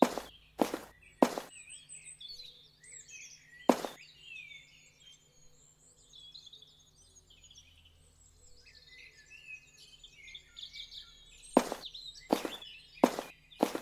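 Small birds chirping over and over, with sharp knocks: three in the first second and a half, one about four seconds in, and a quick run of them in the last two seconds.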